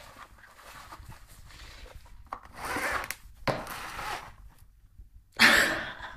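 A cat scrabbling and shifting inside a cardboard box, claws and body scraping against the cardboard in irregular scratchy bursts. The loudest, a short scrape, comes near the end.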